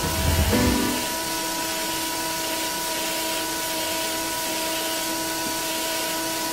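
Belt grinder running steadily with an even motor hum and whine, the high-speed-steel blade blank held off the belt. Music stops about a second in.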